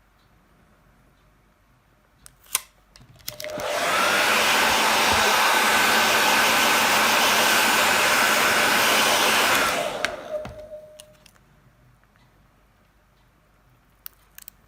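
Small electric blower of the hair-dryer kind switched on with a click, spinning up with a rising whine, running steadily for about six seconds, then switched off and winding down.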